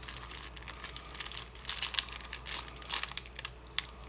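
Plastic sleeve and paper packet crinkling as they are handled and unwrapped, an irregular run of crackles.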